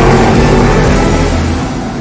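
Race car engine running at high revs, a loud, steady engine note that drops off in the last half-second as the car pulls away.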